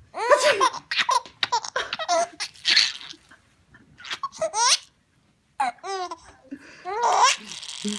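Baby laughing in repeated short bursts and squeals, breaking off for about a second just before the middle and starting up again.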